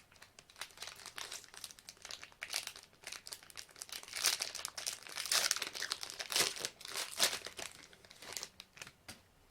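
Plastic trading-card pack wrapper crinkling and crackling as it is handled. The crackles come in clusters and are loudest in the middle.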